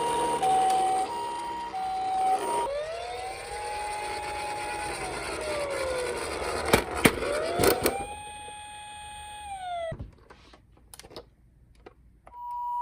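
Toy emergency-vehicle sirens. A two-tone hi-lo ambulance siren alternates for the first two seconds or so. Then a wailing siren rises, holds and falls twice, with a few sharp knocks in the middle, before fading to faint clicks near the end.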